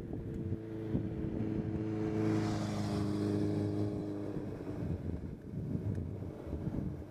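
A motor vehicle's engine drones as it passes close by, loudest about two to three seconds in and then fading away.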